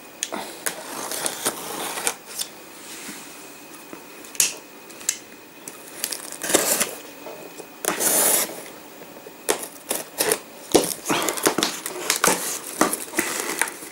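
Hands handling a taped cardboard box: irregular taps, knocks and rubs on the cardboard, with a couple of longer scrapes about halfway through.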